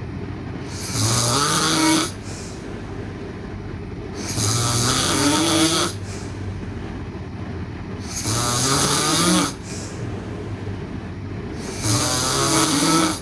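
A sleeping girl snoring: four loud snores, about one every three to four seconds, each lasting about a second and a half with a buzzing tone that rises through the snore.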